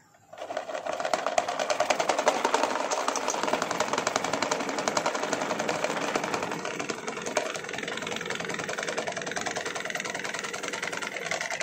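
Electric standing fan with a two-blade propeller switched on, its motor spinning up within the first second and then running with a fast, steady rattle. With only two blades the propeller is out of balance and the fan wobbles as it runs.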